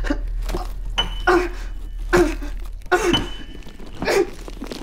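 Film soundtrack: a series of sharp knocks, about one or two a second and somewhat irregular, each with a short ringing tone, over a low hum.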